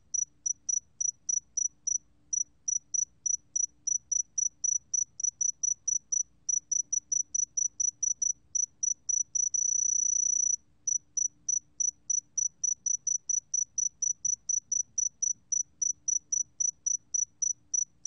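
Sae-geumbit-jongdari, a small golden sword-tail cricket, singing at 20 °C: a high, pure-toned chirp repeated about four times a second, with one unbroken trill of about a second near the middle.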